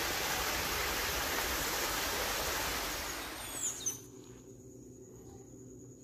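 Steady rush of running water that cuts off abruptly about four seconds in, just after two quick falling chirps. After it comes a faint, steady, high-pitched insect drone.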